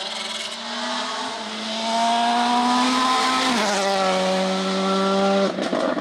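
Rally car engine running hard as the car accelerates past, its note climbing steadily and then dropping sharply about three and a half seconds in, as at a gear change. The note holds, then falls away again near the end.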